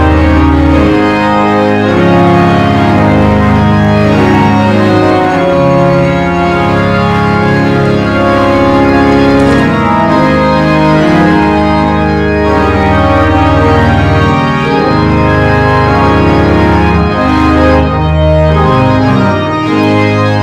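Slow organ music: full held chords over a low bass line, the chords changing every second or two at a steady loudness.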